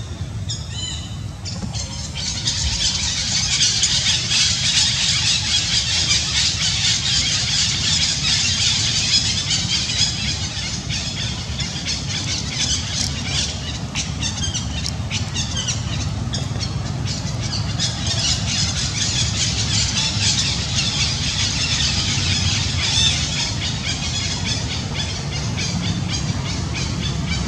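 Baby macaque crying in high-pitched squeals: a few short calls, then from about two seconds in an almost unbroken run of squealing.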